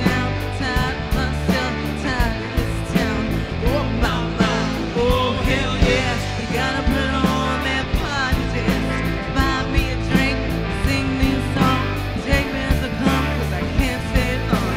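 Live rock band playing: sung vocals over electric guitar, bass and drums, with a steady beat.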